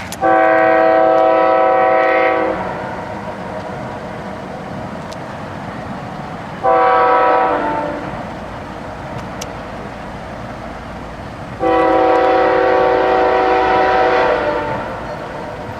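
Locomotive air horn sounding three blasts, long, short, then long, each a chord of several steady tones, over the steady rumble of the train.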